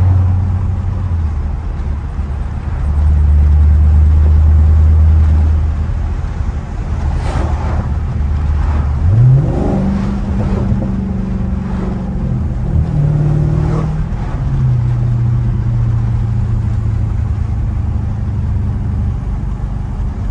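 Dodge Charger Scat Pack's 392 (6.4-litre) HEMI V8 heard from inside the cabin while driving. It starts with a deep low-rev drone, then revs up sharply under acceleration about nine seconds in. The pitch steps down twice as it shifts up, then it settles into a steady cruise.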